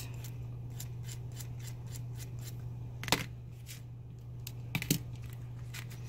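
Needle file rasping in quick, short strokes against the cut end of a copper wire loop to smooth off the sharp tip, followed by a sharp metallic click about three seconds in and two more clicks near five seconds. A steady low hum runs underneath.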